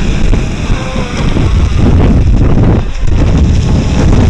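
Loud wind buffeting the microphone, over the sound of an electric RC speedboat running fast across the water.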